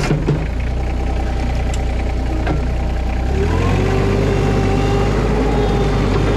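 Engine running steadily just after starting, then speeding up about three seconds in, with a steady whine coming in at the higher speed.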